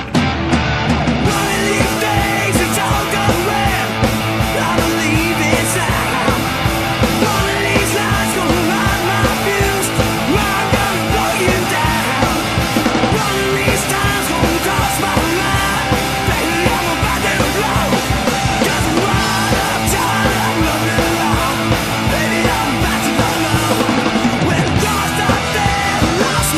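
Loud rock song with drums, guitar and a singing voice.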